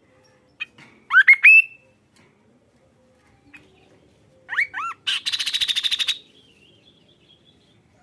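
A kaso-kaso bird singing loudly: a quick run of three rising whistled notes, then a pause, then two more rising notes that run straight into a fast, dry rattle about a second long.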